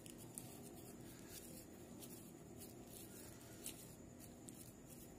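Faint soft rubbing and light pats of hands shaping mashed potato around a boiled egg, with a few small ticks, over a low steady hum.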